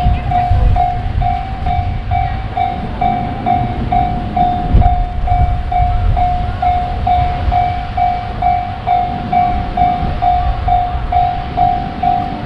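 Japanese level-crossing warning bell ringing steadily, one even tone struck a little over twice a second, over the low rumble of a train passing.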